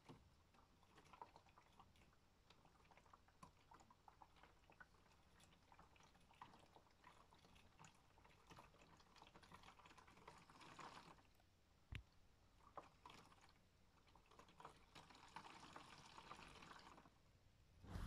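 Faint water sloshing and splashing inside the drum of a modified Miele W1 toy washing machine as it turns the laundry through water. The sloshing swells and fades every few seconds, with a single sharp click about twelve seconds in.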